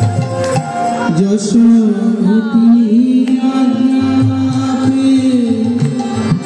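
Devotional song: a voice holds one long, slightly wavering note over drums.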